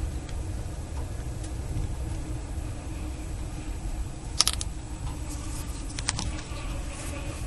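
Low, steady rumble of a sleeper train's passenger coach heard from inside as it runs slowly into a station, with a sharp click about four and a half seconds in and a few more clicks around six seconds.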